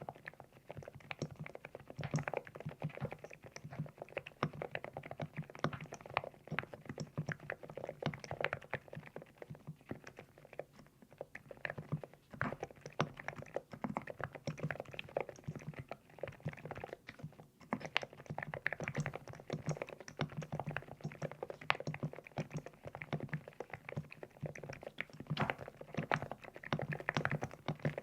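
Continuous typing on a LEOBOG Hi75 full-aluminium mechanical keyboard with Nude Rose switches: a dense, uneven run of keystroke clacks with a low, rounded, pebble-like tone, with a couple of brief lulls.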